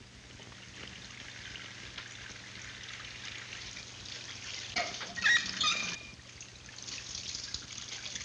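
Kitchen faucet running, water trickling and splashing into a sink, louder toward the end. A few sharp knocks and clinks about five seconds in are the loudest sounds.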